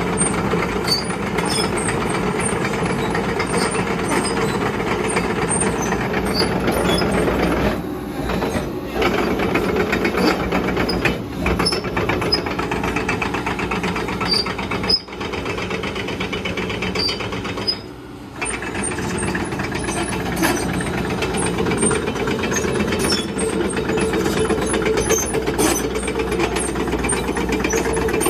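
Caterpillar 312C excavator's diesel engine running, with a steady drone and a rapid mechanical clatter. The sound drops off briefly a few times and then comes back.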